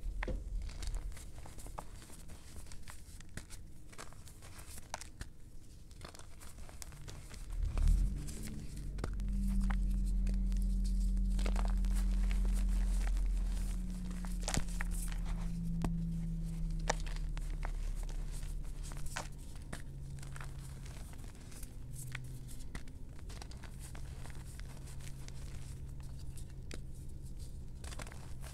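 Hands crushing and crumbling soft gym chalk chunks in chalk powder: a run of small crumbly crackles and crunches. A low steady hum comes in about eight seconds in, is loudest for several seconds, then carries on more quietly under the crumbling.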